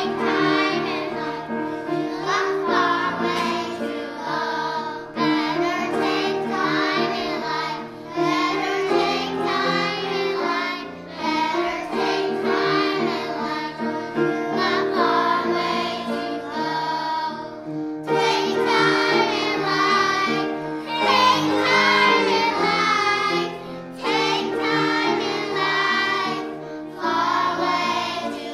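A choir of young children singing a song together with instrumental accompaniment, phrase after phrase with short breaths between.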